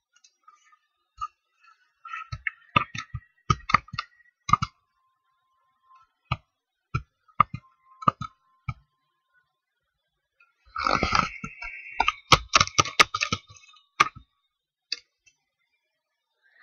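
Irregular clicks and knocks of a computer mouse and keyboard being worked, with a denser run of clatter about two-thirds of the way through.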